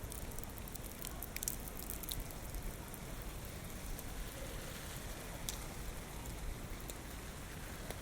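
Typhoon rain falling steadily, with strong wind blowing underneath as a low rumble. A few sharp ticks of drops strike close by.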